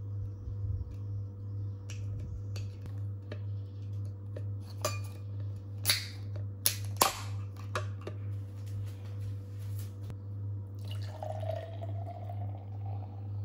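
Sharp clicks of a beer can's ring-pull tab being pried at, with a few close together between five and eight seconds in, over a steady low hum.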